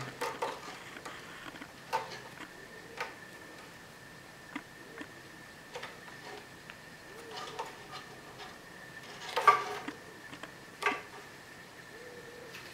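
Irregular knocks, clicks and scratches of a cat playing on a cat tree: claws catching on the sisal post and paws and body knocking on the wooden platforms, with a louder cluster about nine and a half seconds in and another knock a second later.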